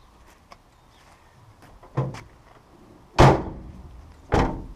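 Rear doors of a panel van slammed shut: two loud slams a little over a second apart, the first the louder, with a lighter thud just before them.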